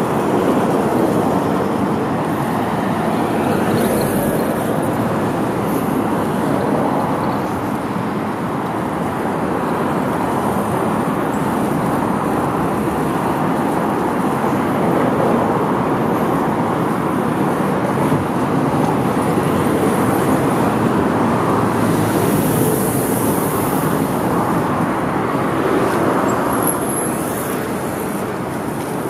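Steady city road traffic: cars driving along the street close by.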